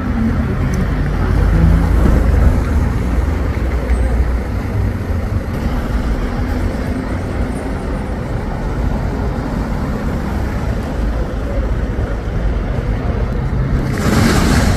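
Road traffic on a city street: car and bus engines running with a low rumble and tyre noise as vehicles drive past, loudest a couple of seconds in. A bus passes close near the end, with a short burst of loud hiss.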